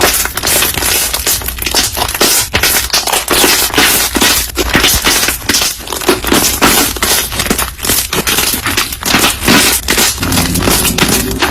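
Slime being squeezed and kneaded by hand, giving a fast, continuous run of crisp crackles, clicks and pops.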